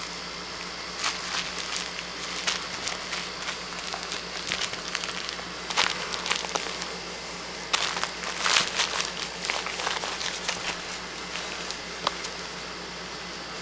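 Irregular rustling and scuffling on bedding as an Italian Greyhound wrestles with a plush duck toy, the bursts loudest about six and eight seconds in.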